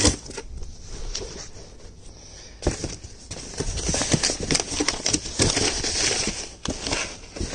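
Gloved hands rummaging through a cardboard box of clothes: fabric and cardboard rustling and scraping, with scattered knocks against the box, busier in the second half.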